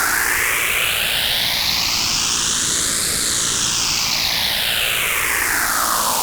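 Digitally generated white noise fed through a phase shifter. The sweep rises slowly for about three seconds, then falls again.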